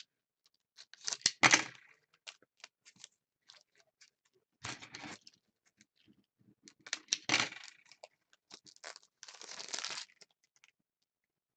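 A foil Panini Totally Certified basketball card pack crinkling as it is torn open and the cards are pulled out. It comes in several short bursts of rustling and clicks, the loudest about a second in.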